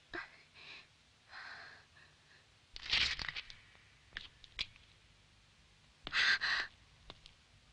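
A girl's breathy gasps and sighs, the strongest about three seconds in and again near six seconds, with a few short clicks between them.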